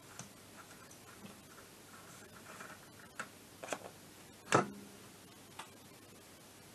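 Scattered light metal clicks and knocks from the clutch parts of a scooter's belt transmission being handled and fitted. The loudest comes about four and a half seconds in: a sharp metallic clank with a short ring.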